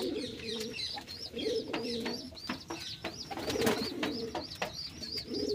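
Domestic pigeons cooing in repeated low, pulsing bouts, with high, quick chirping over them and a few sharp clicks.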